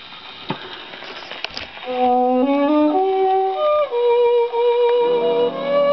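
Gramophone record starting to play: faint surface hiss and a couple of clicks, then an instrumental introduction comes in about two seconds in with a sustained melody, joined by lower accompaniment near the end.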